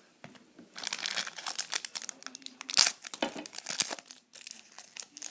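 A trading-card pack wrapper being torn open and crinkled by hand: a dense run of crackling from about a second in until about four seconds in, then a few more crinkles near the end.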